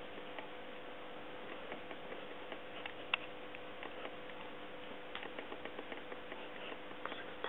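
Faint scattered ticks and clicks from handling close to the microphone, over a steady low hum. One sharper click comes about three seconds in.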